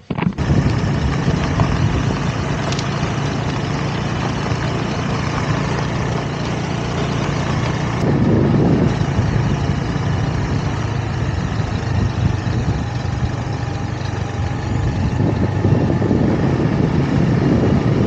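Motor scooter running steadily as it is ridden along a road, its engine hum under a loud rush of wind on the microphone.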